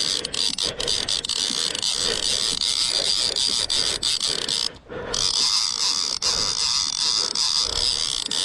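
Line-counter trolling reel being cranked fast, its gears and clicker ratcheting steadily as line is reeled in. The cranking stops briefly about five seconds in, then picks up again.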